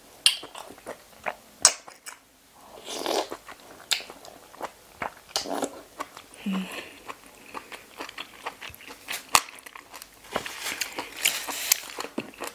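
Close-miked eating of razor clams in fermented-fish sauce: loud sucking and slurping of the meat and sauce from the shells, with crunchy chewing clicks in between.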